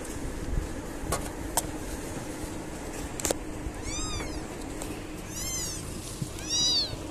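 Newborn kittens, a few hours old, mewing: three short high-pitched cries that rise and fall in pitch, about four seconds in, at five and a half, and the loudest near the end. A few sharp clicks come in the first few seconds.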